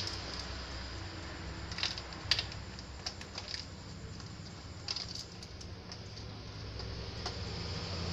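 A projector lens being fitted by hand into a Honda Vario 150's plastic headlight housing: a handful of light clicks and taps, mostly in the first half, over a low steady hum.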